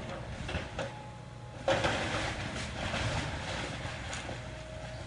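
Demolition machine running with a steady low rumble as a house is torn down, with a sudden rush of crunching debris noise about a third of the way in.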